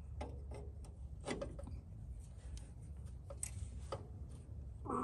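Faint, irregular metal clicks of a wrench tightening the lock nut on a 1967 Mercury pickup's clutch linkage adjuster, set to take the slack out of the clutch pedal.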